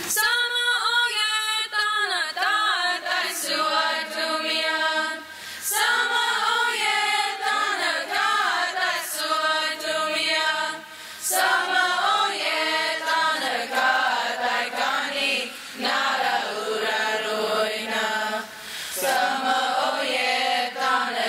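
Youth choir singing a Comanche hymn unaccompanied, in phrases of a few seconds with short breaks between them.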